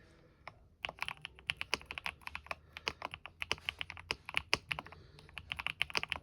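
Typing on a Kisnt 75% wireless mechanical keyboard with stock pre-lubed Kisnt linear switches and PBT keycaps: a fast, uneven run of keystrokes that starts about a second in, after a couple of single key presses.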